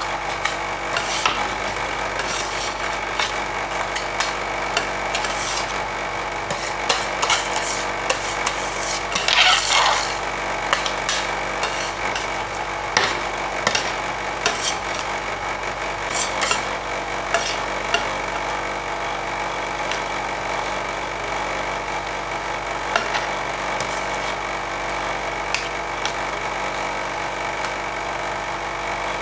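Two metal spatulas scraping, chopping and tapping on the steel cold plate of an ice cream roll machine as they work a freezing ice cream mixture, over a steady machine hum. A sharp tap comes now and then, and there is a longer, louder scrape about nine seconds in.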